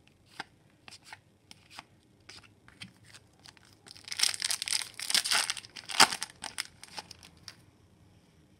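Sealed hockey card pack wrapper being torn open by hand, a dense crinkly tearing for about two seconds, with a sharp snap about six seconds in. Light clicks of trading cards being handled come before and after it.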